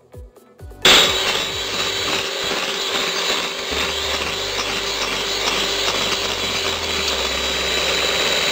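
Faint music, then about a second in an electric hand mixer switches on and runs steadily, its twin beaters whipping egg and sugar batter in a glass bowl.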